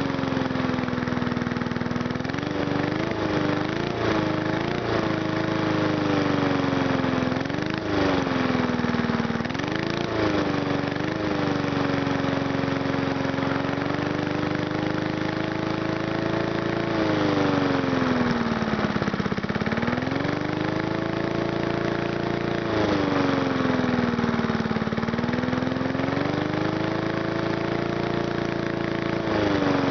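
1959 Briggs & Stratton 2.5 hp single-cylinder four-stroke lawnmower engine running, its speed wandering up and down. There are several quick dips and pick-ups in the first dozen seconds, then slower swells and sags.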